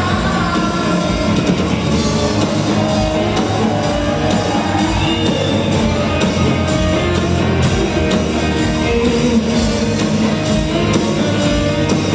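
A rock band playing live: electric guitar, bass, drum kit and keyboards, with singing over a steady beat.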